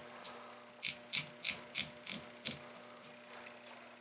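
A baitcasting reel's star drag being turned tight by hand, its drag clicker clicking. Six crisp clicks come about three a second, starting about a second in, then a few faint ones.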